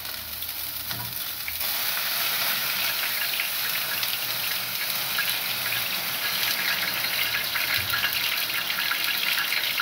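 Food sizzling in a hot pan: a steady crackling hiss that starts suddenly and grows louder about two seconds in, then holds.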